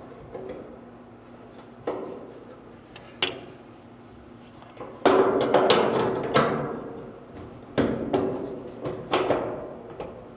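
Irregular metal knocks and clanks of parts being struck and handled, with a dense run of them about five to seven seconds in.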